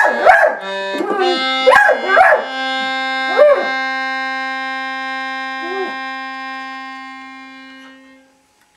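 An Australian Cattle Dog howling along with a reed wind instrument. The instrument holds one long note that steps up in pitch about a second in and fades out near the end. The dog gives several rising-and-falling howls, the loudest in the first few seconds and a last faint one about six seconds in.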